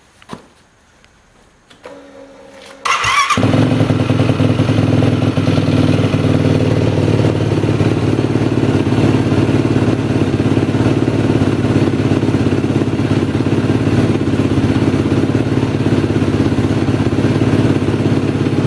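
2010 Yamaha YFZ450R quad's single-cylinder four-stroke engine being started: it cranks briefly and catches about three seconds in, then idles steadily and loudly on its fresh oil.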